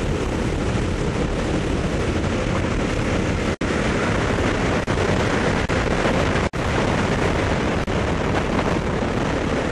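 Loud, steady rush of slipstream wind and aircraft engine noise through a jump plane's open door. The sound cuts out sharply for an instant twice.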